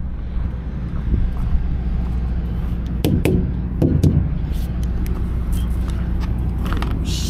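Semi truck's diesel engine running steadily with a low hum, with two short louder sounds about three and four seconds in.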